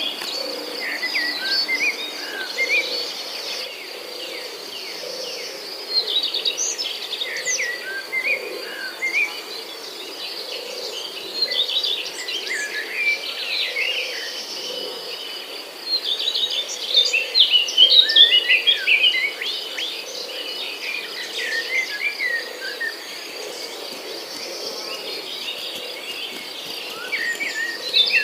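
Insects trilling steadily, with many birds chirping in clusters over the top.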